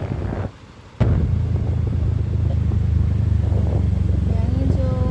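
A motor vehicle's engine running steadily while driving, heard as a low hum with road noise. It drops out briefly about half a second in, then comes back. A voice begins near the end.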